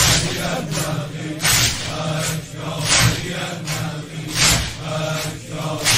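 Congregation of mourners chanting together in unison, over loud, evenly spaced strikes about every second and a half.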